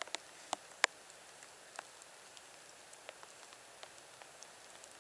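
A few sharp, hard clicks close together, the loudest just under a second in, then scattered light ticks and a couple of clicks later on.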